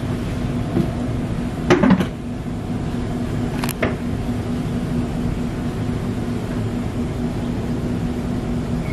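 Steady restaurant room hum with a constant low tone, broken by a few short clinks about two seconds in and a sharper click near four seconds.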